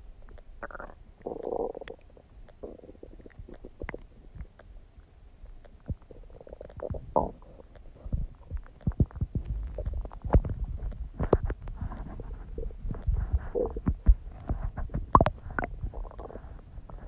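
Human stomach gurgling and rumbling: irregular low rumbles with many quick pops and squelches, busier in the second half, and a couple of short higher gurgles in the first few seconds.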